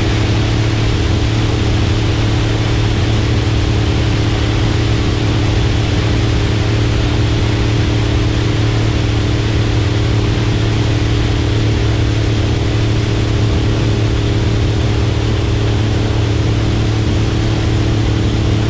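Steady machine noise: a low, unchanging drone with a hum and a broad hiss, with no change in speed.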